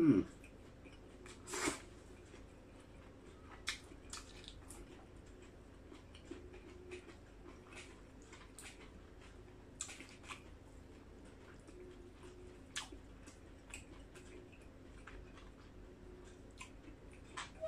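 Close-up eating sounds: a man chewing octopus and rice noodles, with scattered small wet mouth clicks and smacks, a few louder ones near the start, over a faint steady hum.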